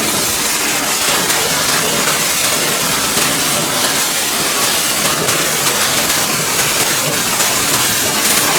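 Pressure washer spraying water onto a dirty tractor, a steady, loud hiss of spray.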